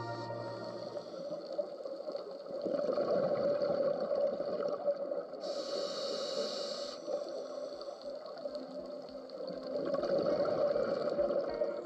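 Underwater sound of a scuba diver's own regulator breathing: bubbly gurgling of exhaled air, twice, with a short hiss of inhalation between them about halfway through.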